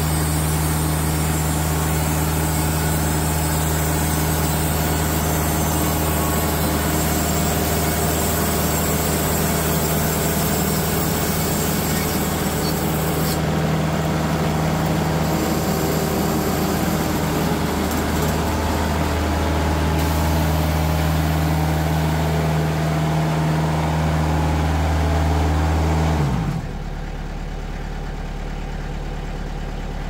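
TimberKing 2020 bandsaw sawmill running, its Kasco band blade cutting through a hardwood log under a steady engine drone, a blade its operator has just judged dull. About 26 seconds in, the cutting noise drops away abruptly and only the engine idling remains.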